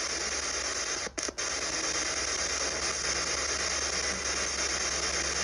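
Steady radio static hiss, like a radio between stations, with a low hum under it. It cuts out twice briefly about a second in.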